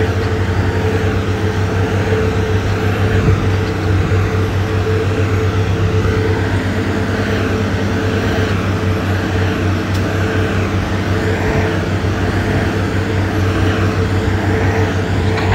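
Diesel engine of a heavy road-building machine running steadily: a constant low drone with a steady higher whine above it.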